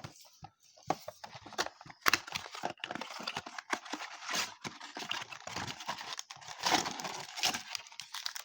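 Plastic shrink wrap crinkling and tearing, with sharp clicks and knocks of a cardboard blaster box being handled and cut open with scissors. The crackling runs on irregularly, loudest about two seconds in and again near the end.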